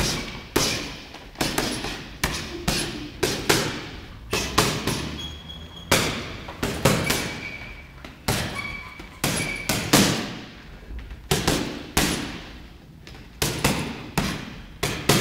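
Boxing gloves punching a heavy punching bag: irregular combinations of thudding blows, about two a second, often in quick pairs, each with a short echo of a large room.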